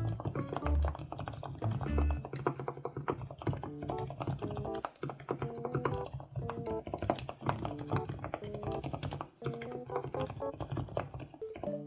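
Fast typing on a mechanical keyboard, a dense run of key clicks, over light background music.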